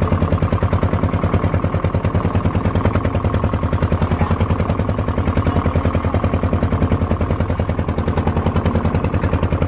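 Fishing boat's engine running at a steady, rapid chug, loud and evenly pulsing, with the boat under way.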